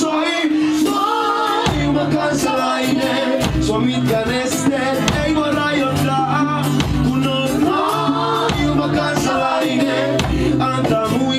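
Live acoustic song: a man singing while strumming an acoustic guitar.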